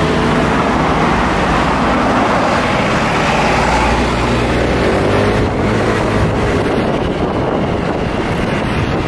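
Wind rushing over the microphone on a moving motorbike, with the bike's engine running underneath and its pitch drifting up and down a little.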